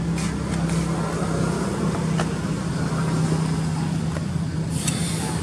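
A motor running at a steady low hum, with a few faint clicks over it.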